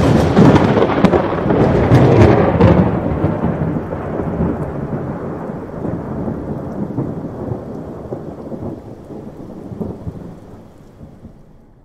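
A thunderclap after a lightning flash: a sudden loud crack with crackling in the first few seconds, then a long rumble that slowly fades away.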